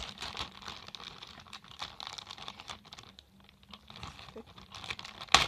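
Slime-kit items and plastic packaging being handled: light rustling with scattered small clicks and taps, and one louder knock near the end.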